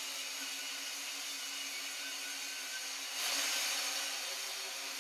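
Angle grinder running against steel bars, grinding off forge scale before forge welding. The steady whirr grows louder and hissier for about a second just after three seconds in, as the disc bites harder into the metal.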